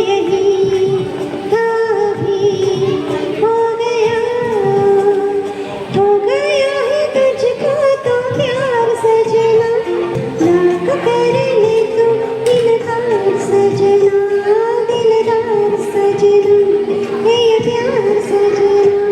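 A woman singing a melodic song with wavering ornamented held notes, over soft instrumental backing.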